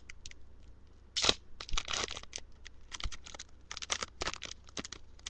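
Foil booster pack of Yu-Gi-Oh! cards being torn open and handled: irregular crinkling and tearing crackles, strongest a little over a second in and again around two and four seconds in.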